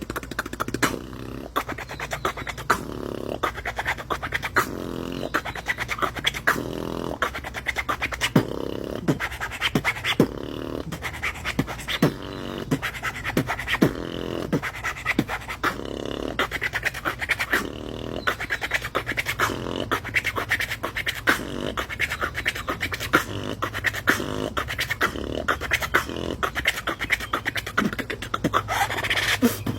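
Freestyle beatboxing: rapid vocal-percussion clicks, kicks and snares in a steady rhythm, with the loudest hits about every two seconds over a steady low hum.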